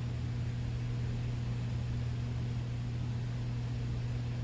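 Steady background noise: a constant low hum under an even hiss, with no change or distinct events.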